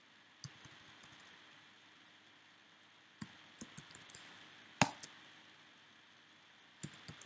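Computer keyboard typing in scattered short runs of key clicks, with one louder key strike a little past the middle as code is entered and run in a notebook cell.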